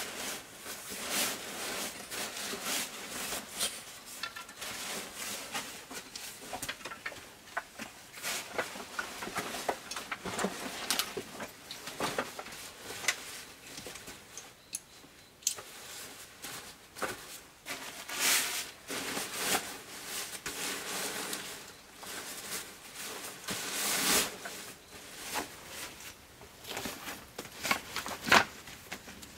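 Irregular rustling and handling noises of cloth bags and a backpack being packed, in uneven bursts with a few sharper clicks.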